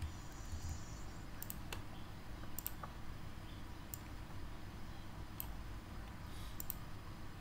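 Computer mouse clicking: a handful of single and double clicks, roughly one every second, over a low steady hum.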